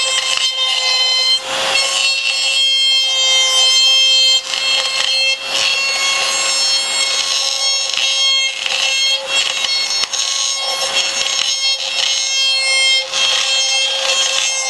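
A DeWalt trim router running at full speed with a steady high whine, while its bit cuts into the hot-coated fiberglass surfboard to rout the fin box slot. The cutting adds a rasping noise that swells and eases in uneven strokes as the router is guided along.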